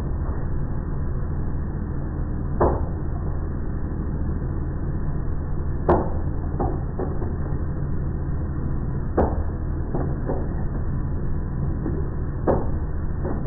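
Engine valvetrain test rig running an engine brake, with a steady low machine hum and a sharp mechanical clack about every three seconds, each followed by one or two lighter knocks.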